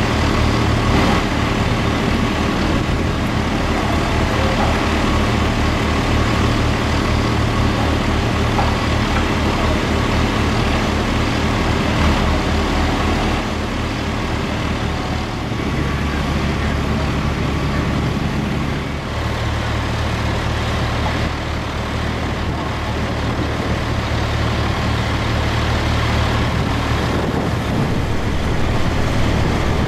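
Fire truck's diesel engine running steadily, a continuous low rumble with a fast pulse in its lowest notes that shifts to a smoother, slightly different note about halfway through and changes again a few seconds later.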